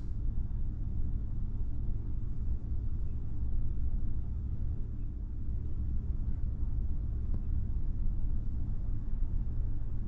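Steady low rumble of a large ferry's engines and machinery, heard inside a passenger cabin.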